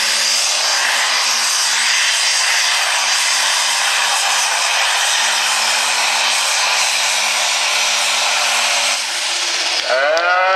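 Light pro stock pulling tractor's diesel engine running flat out under full load as it drags the weight sled, a loud, steady rushing roar with a steady low tone under it. The engine cuts off about nine seconds in as the run ends.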